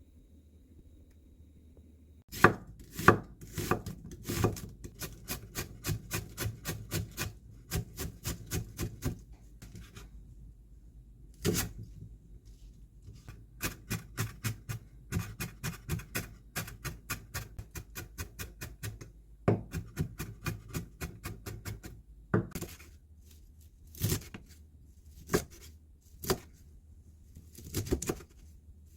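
Knife chopping on a cutting board in quick, even runs of several strokes a second, then slower separate chops near the end.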